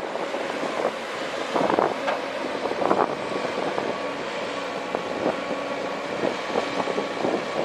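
Komatsu PC130 hydraulic excavator's diesel engine running steadily while it works, with a few short knocks scattered through.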